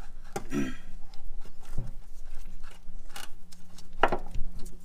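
A few scattered light clicks and knocks of metal suspension hardware being handled and fitted by hand on a camber-kit upper control arm, over a faint steady hum.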